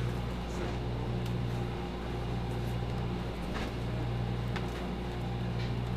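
Steady low mechanical hum of a ship's machinery below decks, with a few faint knocks of boxes being handled.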